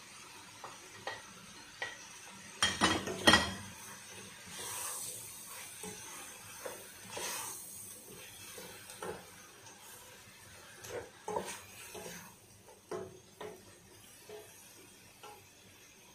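Wooden spoon stirring shrimp and fresh herbs in a nonstick pot on the hob: scattered knocks and scrapes against the pot, with a louder clatter about three seconds in and a soft sizzle at times.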